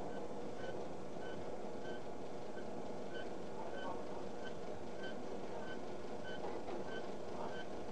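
Noodle-making machinery running steadily in a factory, with a short high-pitched beep repeating about one and a half times a second over the drone.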